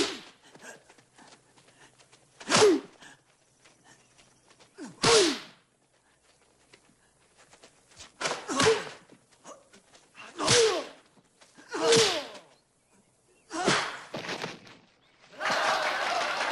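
Martial-arts film fight sound effects: about seven punch and kick impacts, each with a short sharp shout from a fighter, spaced a second or two apart. Near the end a crowd starts applauding.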